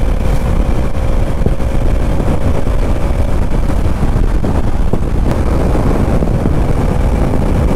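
Heavy wind rush on the microphone at highway speed, over the steady engine note of a Kawasaki Ninja 300's parallel-twin engine running through an aftermarket Yoshimura exhaust.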